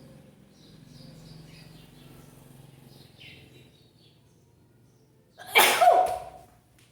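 A single sharp sneeze about five and a half seconds in, after a few seconds of faint background sound.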